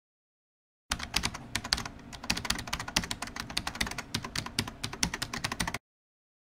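Rapid computer-keyboard typing used as a sound effect: a dense run of key clicks that starts about a second in and cuts off suddenly near the end.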